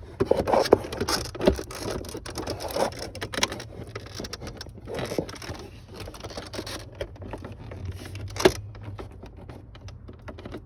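2005 Chevy Trailblazer instrument cluster being wiggled loose and pulled out of the dashboard: rattling, scraping and clicking of plastic parts, with one sharp click about eight and a half seconds in.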